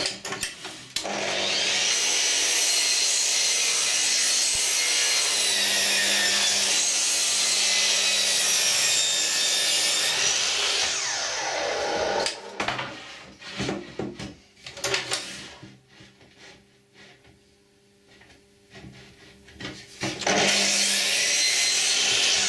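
Electric mitre saw running and crosscutting a wooden board for about ten seconds, its motor whine falling as it spins down. A few knocks of boards being handled and a quiet pause follow, then the saw starts up again near the end.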